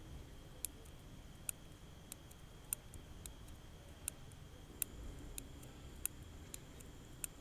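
Faint, sharp clicks, about one every two-thirds of a second and a little uneven, over a faint steady high-pitched whine.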